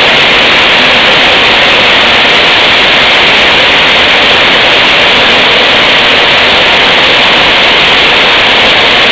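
Maize flour milling machinery running, a loud, steady, hiss-like din with no distinct rhythm.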